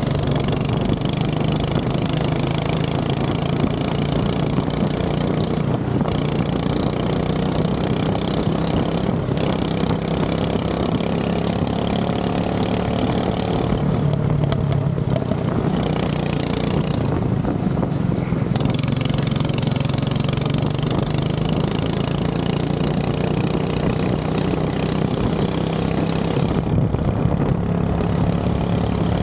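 Go-kart's small engine running steadily, its pitch holding nearly level throughout.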